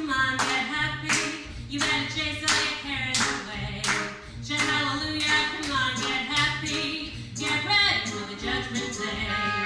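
A woman sings into a hand microphone over a backing track with a pulsing bass. Sharp beats come about twice a second.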